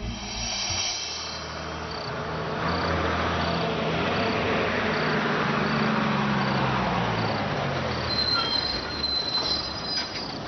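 A Tata bus drives up and slows to a stop, its engine note falling, with a high brake squeal near the end. Crickets chirp at an even pace, about one chirp every three quarters of a second.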